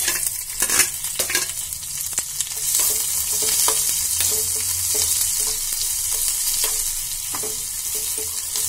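Chopped onion sizzling as it hits hot mustard oil in a pan with whole spices, stirred with a metal spoon. A few sharp spoon clinks in the first second or so, then a steady loud sizzle from about three seconds in, with light scrapes and ticks of the spoon on the pan.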